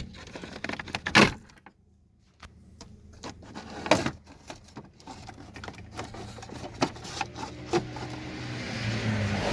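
Plastic dashboard trim around a Tofaş Doğan instrument cluster being handled and pried off: scattered clicks and knocks, with two louder sharp knocks about one and four seconds in. A low steady hum builds in the last few seconds.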